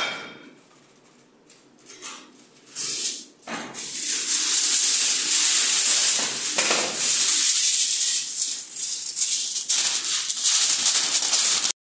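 Aluminium foil crinkling and rustling as it is handled: a few short rustles, then a dense, continuous crackle from about four seconds in that stops abruptly near the end.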